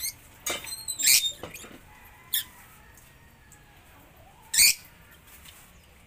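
Lovebirds giving short, shrill, high-pitched chirps, about five of them. The loudest come about a second in and again near the end.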